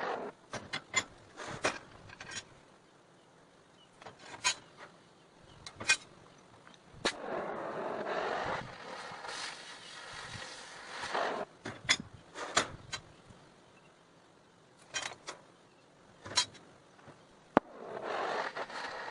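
Scattered sharp clanks and knocks of steel parts being handled, with a few stretches of scraping noise lasting a second or two.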